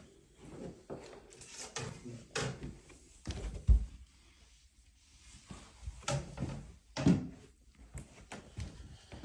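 Scattered knocks and thumps with rustling, the loudest thump a little under four seconds in.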